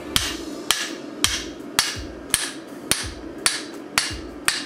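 Hand hammer striking a red-hot hatchet head on a steel anvil, about nine evenly paced blows at roughly two a second, each with a short metallic ring. The smith is dressing down both sides of the freshly punched eye so it is tight, over a steady background hum.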